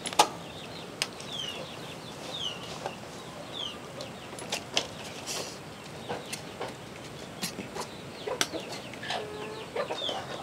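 A metal spoon clinking and scraping against a wok and a steel plate as cooked bamboo shoots are served, in scattered sharp clicks. Birds call in the background with short falling chirps.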